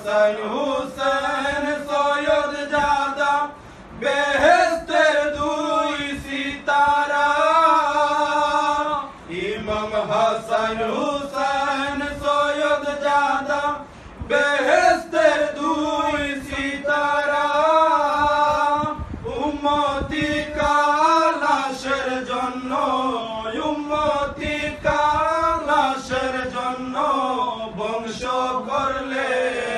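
Male voices chanting a devotional jari salam in long melodic phrases of about five seconds each, with short breath pauses between them. There is no instrumental accompaniment.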